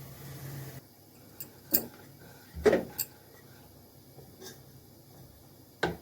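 A few sharp knocks and clatters of household objects being handled, the loudest with a brief ringing tone, after a steady hiss that cuts off just under a second in.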